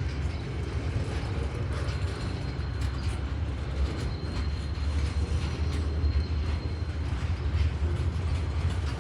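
Train running with a steady low rumble and occasional faint clicks, and a faint high whine through the middle.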